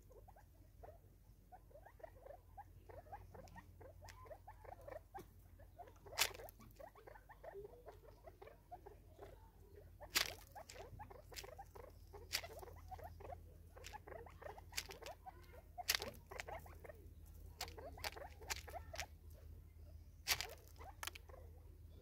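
Natal spurfowl pecking at seed and maize kernels on a feeder stump and plastic container: irregular small taps and clicks, with about five sharper, louder knocks spread through.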